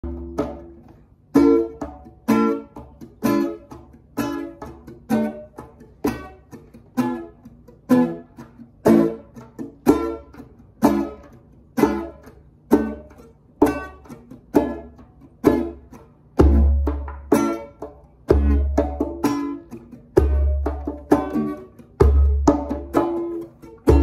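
Acoustic guitar and a hand drum playing together in a steady groove, with a drum stroke about once a second under the plucked guitar notes. From about two-thirds of the way through, deep bass strokes on the drum come in about every two seconds.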